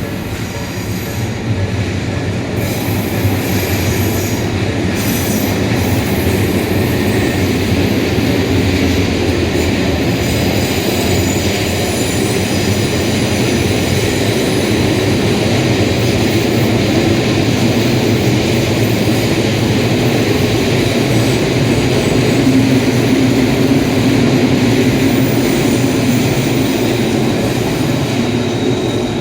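Electric commuter train passing a level crossing: a steady, loud rumble of wheels on the rails that builds over the first couple of seconds and holds, with thin high-pitched wheel squeal on top.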